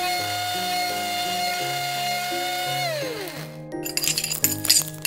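A small electric motor whirs at a steady high pitch, then winds down with a steeply falling pitch about three seconds in. Light clinks and taps of small utensils follow near the end, over background music.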